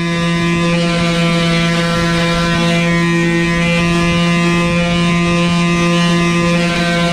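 Old Black & Decker quarter-sheet palm sander running steadily with an even buzz, its pad scrubbing over cured fiberglass.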